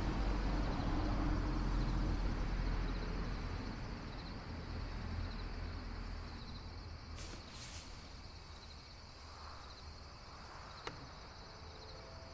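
A car pulls away and its engine and tyre rumble fades over the first several seconds. Crickets chirp in a steady pulsing rhythm throughout, and there is a single sharp click near the end.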